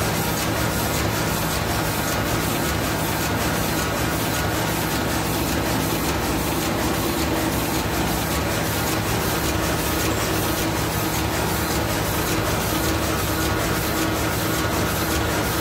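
Heidelberg GTO 52 offset printing press running at speed, with numbering heads turning on the cylinder: a steady mechanical whir with a regular rapid clatter.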